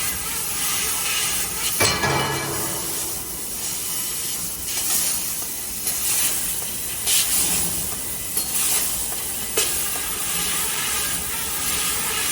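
A 3000 W Raycus fiber laser tube-cutting machine at work: a steady hiss of the cut and its assist gas, broken by several sharp clicks or knocks, the strongest about two seconds in.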